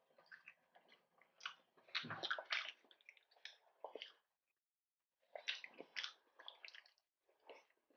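Quiet close-up eating sounds: crunching bites into crispy deep-fried shrimp tempura and wet chewing, in scattered clusters with a near-silent pause around the middle.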